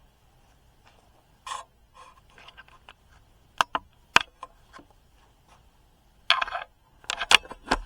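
Scattered sharp clicks and knocks with a few short scrapes as objects are handled: a brief scrape about a second and a half in, three sharp clicks around the middle, and a busier run of clicks and scrapes near the end.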